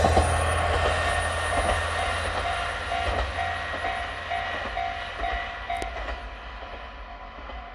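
KiHa diesel railcar moving away after passing a level crossing: its engine rumble and the clicks of its wheels over the rail joints fade steadily. The crossing's warning bell rings about two or three times a second and stops about six seconds in.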